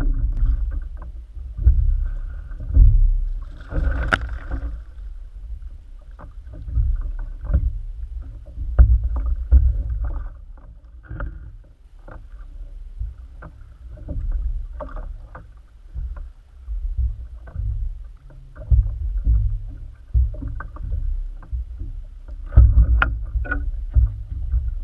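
Water slapping and sloshing against a plastic sit-on-top fishing kayak, with an uneven low rumble and scattered knocks and thumps as a lingcod is netted and handled aboard. A brief louder rush about four seconds in, and a cluster of knocks near the end.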